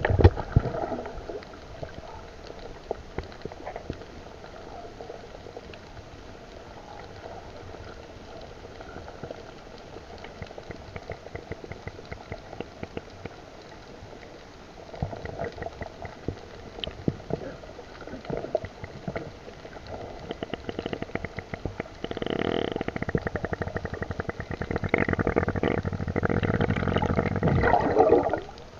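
Muffled underwater sound picked up by a submerged camera: a fine, constant crackle of clicks over dull water noise. About three quarters of the way in, the water noise grows louder and fuller, with gurgling, and stays that way until near the end.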